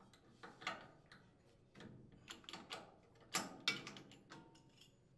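Faint, irregular metallic clicks and scrapes of a T-handle spark plug wrench being turned to unthread the spark plug from a Briggs & Stratton small engine, in several short clusters.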